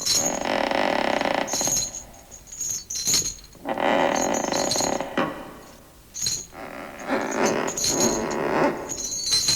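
Recorded haunted-house sound effect of clinking, rattling metal, in three long bursts with short lulls between.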